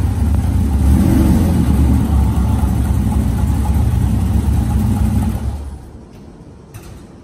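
Air-cooled VW Beetle flat-four running through a Vintage Speed aftermarket exhaust, revs rising slightly about a second in. The engine is then switched off about five and a half seconds in.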